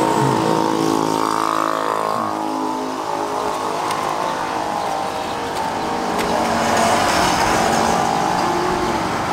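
A motor engine running steadily with an even hum, its pitch shifting slightly now and then.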